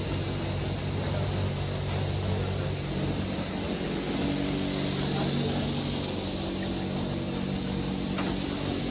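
Steady mechanical drone: a low hum with a thin high whine above it, running evenly.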